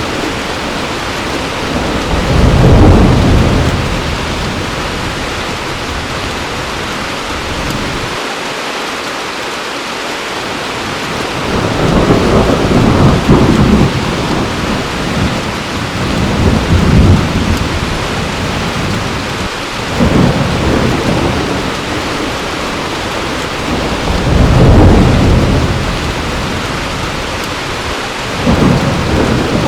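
Heavy rain falling steadily, with rolls of thunder rumbling up and fading away several times.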